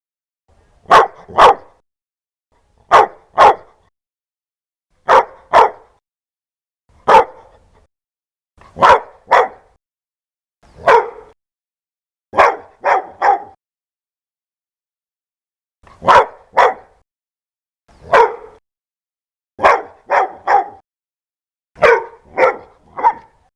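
A dog barking loudly in short bursts of one, two or three barks, a burst about every two seconds, with dead silence between them.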